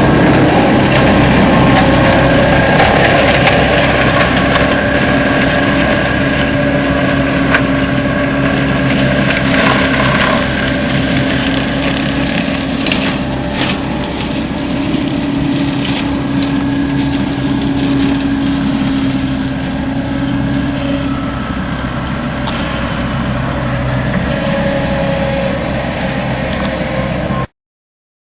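ASV RC100 tracked skid steer running hard with a Seppi MiniForst hydraulic mulcher head shredding wood and brush: a steady engine drone with the rotor's grinding noise and occasional sharp cracks of wood breaking. The sound cuts off abruptly near the end.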